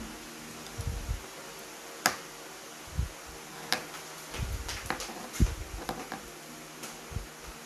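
Irregular sharp clicks of small hand pliers and wire cutters working the stripped conductors of a thin audio cable, twisting two wires together, with soft knocks of handling in between.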